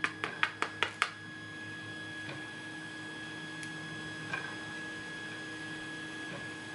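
A quick, even run of light clicks, about six a second, stops about a second in. Then a steady machine hum with a few faint ticks, which fits the 3D printers running in the room.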